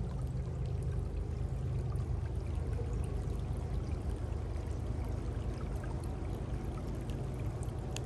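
Steady rushing of a river flowing, with a few faint ticks over it.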